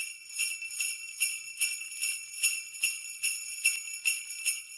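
Sleigh bells jingling in a steady rhythm, about two and a half shakes a second.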